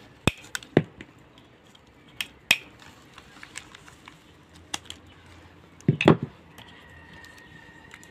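Hand pruning shears snipping at a woody bougainvillea stem: a series of sharp single clicks over the first five seconds, then a louder quick cluster of snips about six seconds in as the branch is cut through.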